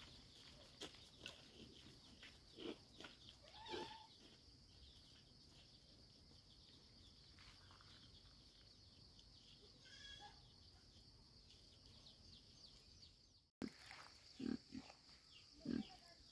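Faint farm animal calls over a steady high-pitched drone: one short call about ten seconds in, then after a break in the sound, two low grunts near the end.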